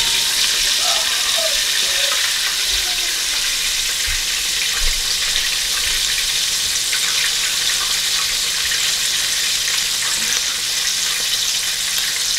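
Buttermilk-battered chicken pieces deep-frying in a pot of hot oil: a steady hiss with fine crackling.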